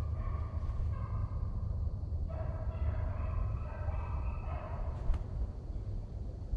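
A pack of hunting hounds baying while running a buck, several voices overlapping in long drawn-out bawls, over a steady low rumble. A single sharp click about five seconds in.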